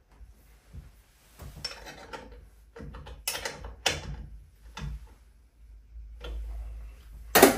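Plastic clicks and scrapes of a drain plug being screwed back into the bottom of a magnetic central-heating system filter by hand, a few sharp clicks apart, with a louder clatter near the end.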